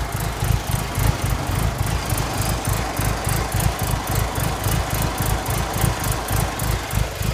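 Mitsubishi Lancer Evolution VIII's turbocharged 2.0-litre four-cylinder idling lumpily, its low exhaust pulses uneven in spacing and strength: the engine is misfiring.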